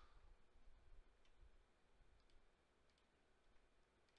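Near silence: room tone with a few faint, sparse clicks from working at a computer.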